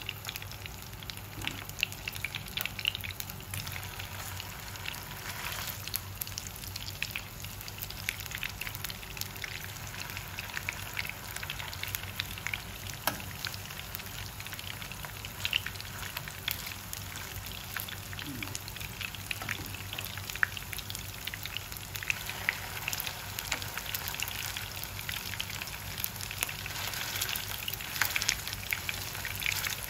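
Lotus root patties shallow-frying in oil in a nonstick frying pan: a steady sizzle with many small crackles and pops. It gets a little louder in the last few seconds as more patties go into the oil.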